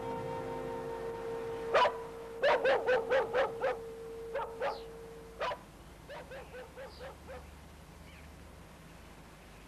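A dog barking in a quick run of about ten sharp barks, then half a dozen fainter yelps that die away. A sustained musical chord plays under the first half and stops about halfway through.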